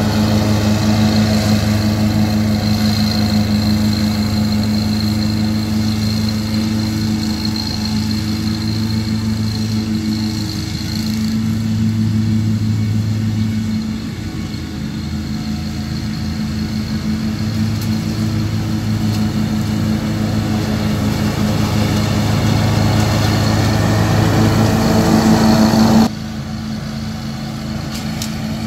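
Kubota Z726X zero-turn mower running steadily while mowing, with the deck blades and the PV18 catcher's vacuum blower turning: a steady engine hum with a faint high whine. The level drops abruptly a couple of seconds before the end.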